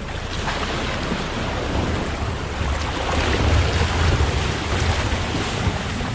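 Wind buffeting the microphone over rushing water, a steady noisy rumble that swells about halfway through.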